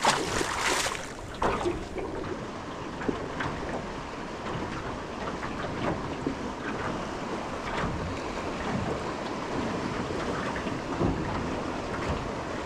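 A small released trevally splashes into the sea at the start, with another smaller splash about a second and a half in. After that comes a steady wash of sea water and wind on the microphone, broken by a few faint clicks.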